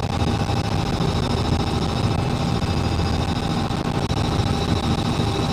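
Helicopter running steadily: a high turbine whine over a rapid low rotor chop.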